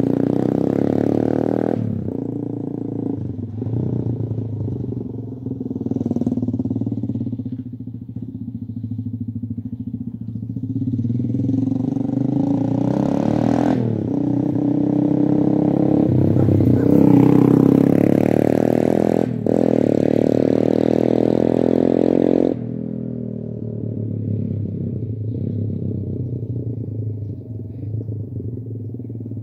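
Appia Leyenda 150cc motorcycle engine running through a Paolucci stage 1 aftermarket exhaust, its revs rising and falling, with several sudden drops in revs.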